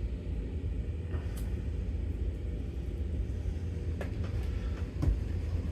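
Steady low rumble of background noise, with a few light clicks and taps, about a second and a half, four and five seconds in.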